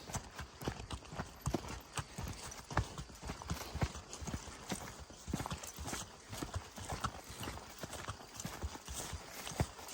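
Steps along a forest track: a steady run of irregular knocks and crunches.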